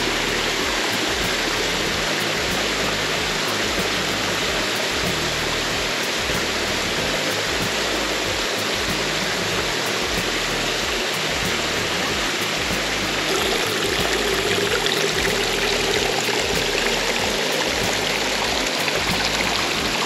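Running water rushing steadily, a stream or small waterfall flowing over rocks, with background music underneath. The rush grows slightly louder about two-thirds of the way through.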